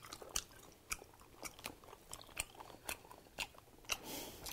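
Close-miked chewing of soft, chewy Korean rice cakes (tteok) from a skewer, with many short wet mouth clicks coming irregularly, several a second.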